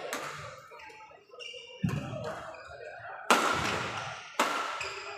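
Badminton rackets striking the shuttlecock in a doubles rally: four sharp hits spaced one to two seconds apart, echoing in a large hall. The last two hits are the loudest, and the second, about two seconds in, is a deeper, heavier thud.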